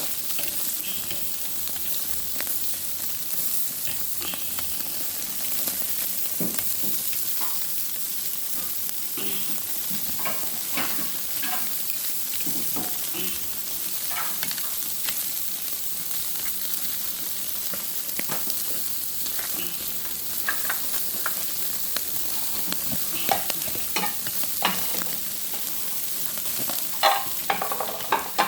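Seafood sizzling steadily on a hot grill, with scattered short clicks and taps, a few louder ones near the end.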